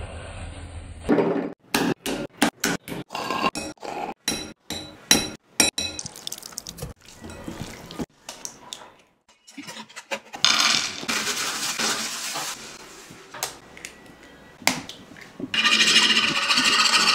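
Close-miked kitchen prep sounds: first a quick run of sharp taps and clicks, then wet squishing of chicken being hand-mixed in marinade in a glass bowl. Near the end comes a loud, fast scraping of a wire whisk beating batter in a pan.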